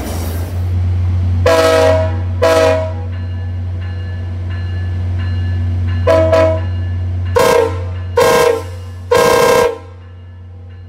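Train horn played as a horn show for railfans: two short blasts, a pause of about three seconds, then four short blasts in quick succession, over a steady low rumble that falls away after the last blast.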